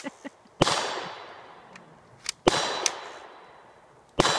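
Three sharp gun-like shots nearly two seconds apart, each followed by a long fading tail, with a few small clicks between them.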